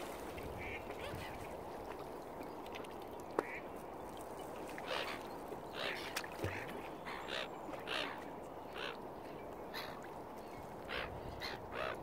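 Waterfowl calling: a run of short calls, most of them in the second half, over a steady low background noise, with one sharp click about three and a half seconds in.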